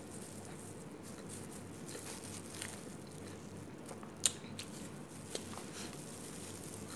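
Quiet eating sounds: chewing, with scattered small crackles from the paper burger wrapper and disposable plastic gloves being handled, and one sharp click about four seconds in.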